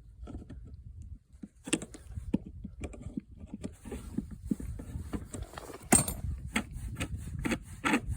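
Metal clicks and scrapes as the stem of a frost-free outdoor water tap is turned open all the way by hand, with a sharper knock about six seconds in.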